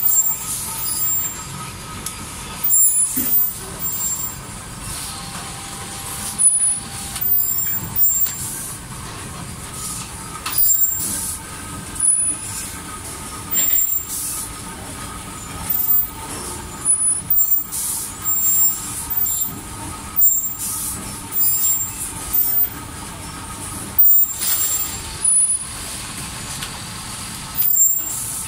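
Compressed air hissing out of machine pneumatics in short, irregular bursts every second or two, over a steady running hum with a thin whine. The source is a selective soldering machine at work.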